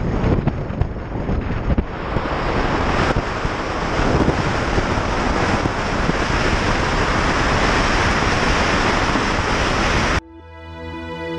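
Wind rushing over the microphone of a helmet camera on a moving motorcycle, a steady loud rush with low buffeting that grows stronger a couple of seconds in as the bike picks up speed. It cuts off abruptly near the end, giving way to music.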